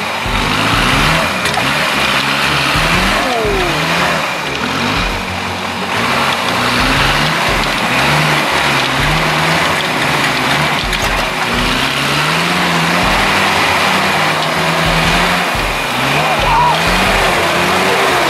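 Off-road 4x4 ute's engine revving up and down under load as it claws up a steep, muddy rut, its pitch rising and falling in uneven steps.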